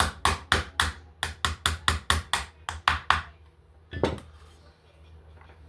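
Small hammer tapping quickly and repeatedly, about four sharp strikes a second for some three seconds, with one more strike about a second later. The taps are typical of driving the trigger-assembly pin back into a Stevens 320 pump shotgun's receiver.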